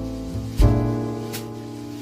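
Background music: slow sustained chords that fade away, with a new chord struck about half a second in.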